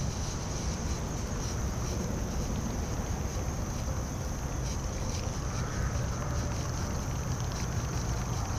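Wind buffeting the microphone: a steady low rumble, with a constant high hiss over it.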